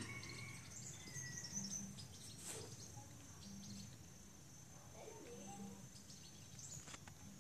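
Faint garden ambience: birds chirping now and then, with a short falling whistle about a second in, over a steady high insect buzz.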